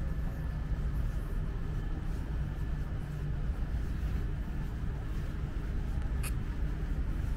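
Footsteps of a person walking on pavement, faint scuffing steps at an even pace, over a steady low outdoor rumble; one sharp click about six seconds in.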